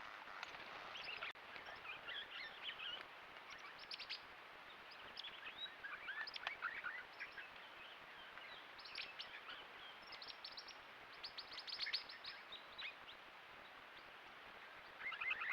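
Swift parrots calling as a flock: repeated bursts of quick, high chirps from several birds at once, thickest near the end.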